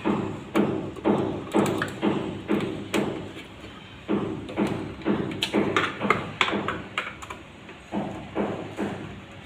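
Footsteps thudding at an even pace of about two a second, each with a short echoing tail; about four seconds in they weaken and become irregular.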